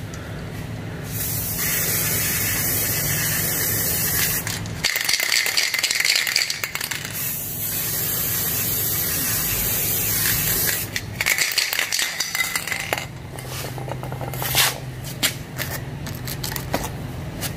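Aerosol can of black spray paint hissing in two long bursts of about four seconds each, laying light coats on a foam part. A scatter of clicks and rattles follows in the last few seconds.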